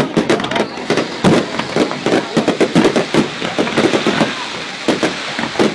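Fireworks bursting in a rapid, irregular string of bangs and crackles, many reports a second.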